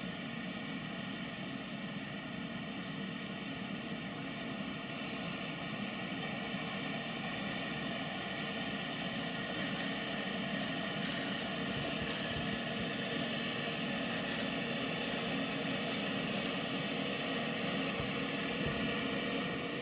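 New Holland CR8090 combine harvester running steadily: a dense engine and machinery drone with steady whining tones, growing slightly louder over the span.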